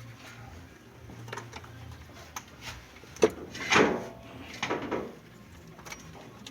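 Irregular knocks and clicks of hard parts being handled, with a loud clatter a little past halfway and a shorter cluster of knocks about a second later.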